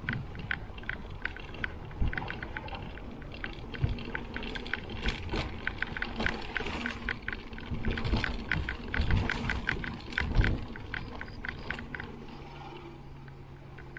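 Mountain bike rolling over dirt singletrack, with a fast, even ticking from the bike and a few dull thumps from bumps in the trail. Near the end the ticking stops and a low steady hum comes in.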